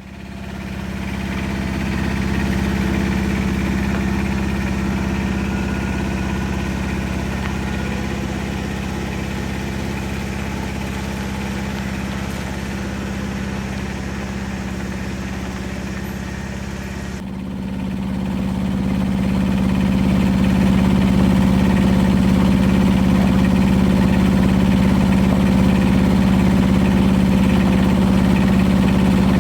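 An engine running steadily at a constant speed, with a strong low hum. A little past halfway it changes abruptly and runs louder.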